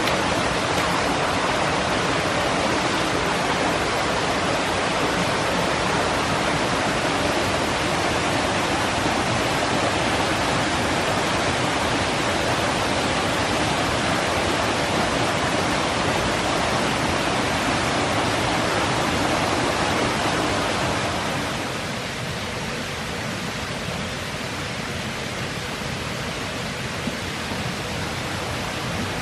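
Rushing stream water, a steady, even hiss of flowing and falling water. About three quarters of the way through it turns somewhat quieter, with less of its deeper rush.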